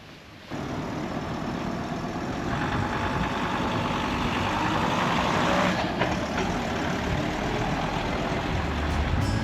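Camper van engine and road noise while driving, cutting in abruptly about half a second in, with a rushing hiss that swells for a few seconds in the middle.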